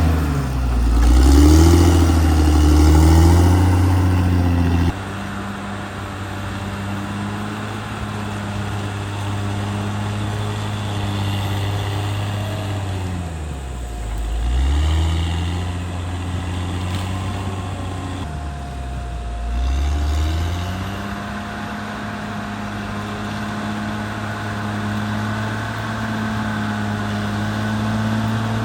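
Caterpillar D6R XL bulldozer's diesel engine running steadily, louder for the first few seconds before the level drops suddenly. Twice, about halfway through and again about two-thirds through, the engine pitch dips sharply and then climbs back.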